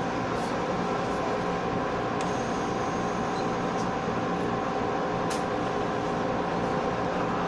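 Interior running noise of a JR West 117 series electric train rolling along: a steady hum and rumble with a few steady tones, and two faint sharp ticks about two and five seconds in.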